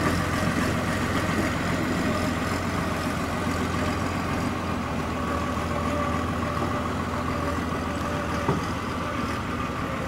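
Fiat 110-90 tractor's diesel engine running steadily as the tractor drives slowly up a gravel lane, with a brief knock about eight and a half seconds in.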